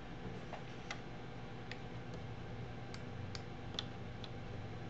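A handful of faint, irregularly spaced clicks of computer keys and a mouse as numbers are typed into a form, over a low steady hum.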